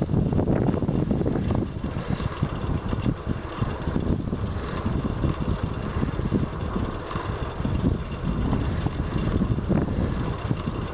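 Wind buffeting the microphone of a compact camera carried on a moving bicycle: a loud, choppy low rumble that never lets up.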